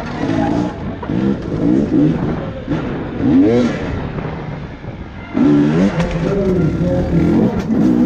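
Enduro dirt bike engine revving up and down as the throttle is opened and closed, with a sudden surge to higher, louder revs about five seconds in.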